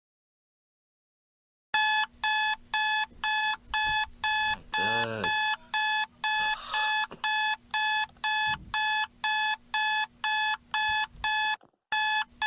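Electronic alarm clock going off: a rapid, steady beep-beep-beep, about three beeps a second, that starts suddenly about two seconds in. It breaks off briefly near the end and then starts beeping again.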